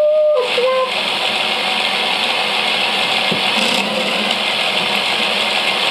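Motorised Mould King 11012 building-block roller coaster running, giving a steady rattling clatter from its motor drive and plastic cars on the track.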